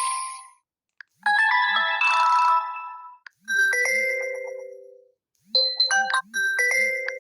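Honor 90 Lite smartphone notification tones played one after another through the phone's speaker. A bright multi-note chime is followed by a ringing chime that slowly fades, then a quick run of short melodic notes starts about five and a half seconds in. Short clicks come between them.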